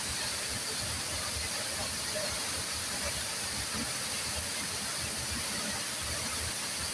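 Waterfall: a steady rush of falling water, even and unchanging.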